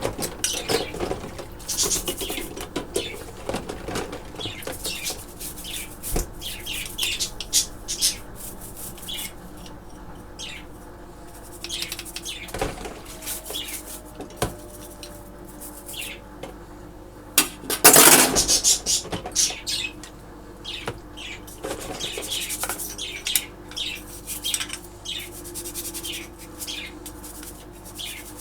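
Scrubbing brush rasping in irregular strokes over budgie cage items in a bowl of water, with a louder burst of scrubbing about two-thirds of the way through.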